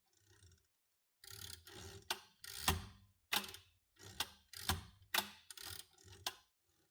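A 1916 Royal 10 manual typewriter's carriage and margin mechanism being worked by hand: a run of sharp metallic clicks, roughly one every half second, with short sliding, scraping sounds between them.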